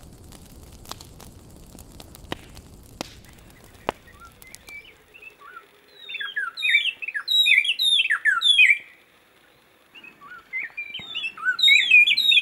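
A wood campfire crackling with sharp scattered pops for the first few seconds. Then, from about five seconds in, birds sing in two bursts of rapid sweeping whistled notes.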